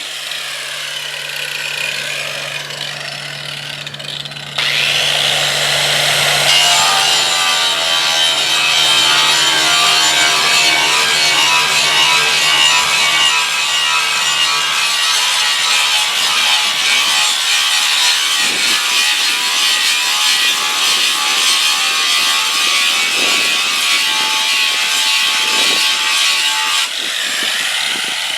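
A power tool working a surface with a steady rasping noise, which steps up sharply in loudness about four seconds in and eases near the end. A low steady hum runs under the first half.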